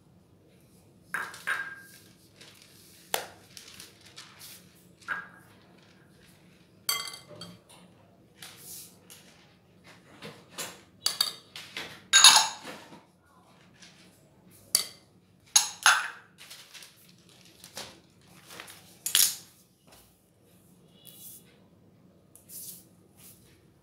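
Glass and metal kitchenware clinking against a glass mixing bowl: small glass prep bowls being handled, and a metal mesh sieve knocked on the bowl to sift flour and cocoa powder. A series of irregular sharp clinks, some ringing briefly.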